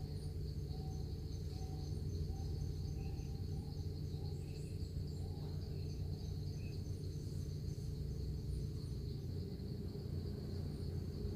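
Steady, high-pitched drone of insects over a low background rumble, with a faint series of short notes in the first four seconds.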